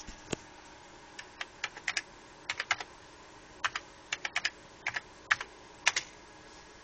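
Typing on a computer keyboard: about two dozen irregular key clicks in short runs, against a faint steady hum.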